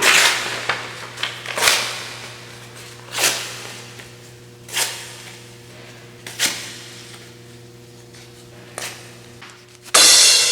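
A series of sharp knocks, one every second and a half to two and a half seconds, each dying away quickly, over a steady hum. Near the end comes a louder strike that rings out longer.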